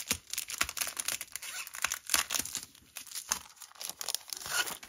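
Paper crinkling and rustling as a stack of glossy photographic prints and their packaging are handled, with many quick irregular crackles.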